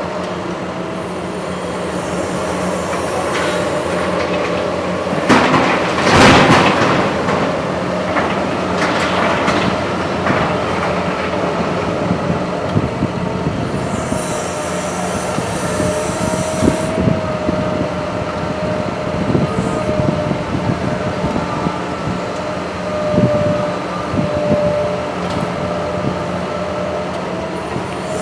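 Liebherr 944C crawler excavator working brick rubble: its engine and hydraulics run steadily with a whine, while the steel bucket scrapes, knocks and rattles through broken brick. The loudest crash of rubble comes about six seconds in.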